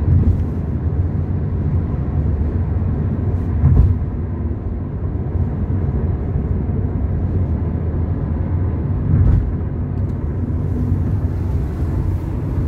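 Steady low rumble of road and engine noise inside a car's cabin while driving along at speed, with two brief thumps, about four and nine seconds in.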